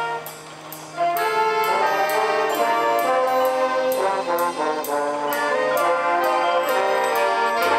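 Marching band brass section playing held chords, with trombones and trumpets prominent. The band plays softer just after the start, then comes back in loud about a second in, over light percussion strokes keeping a steady beat of about two a second.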